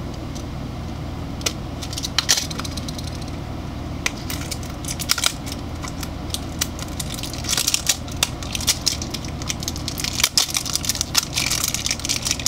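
A small cardboard toy box being handled and opened by hand: scattered taps and clicks, with stretches of rustling and crinkling packaging about halfway through and again near the end.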